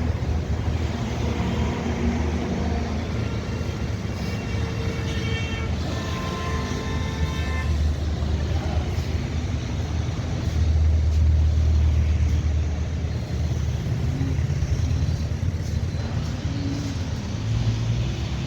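Road traffic: a steady low rumble of vehicle engines, with a vehicle horn sounding for about three seconds near the start.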